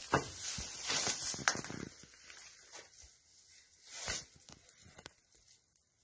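Rustling, crunching footsteps in dry grass, dense for the first two seconds, then only a few scattered clicks and knocks.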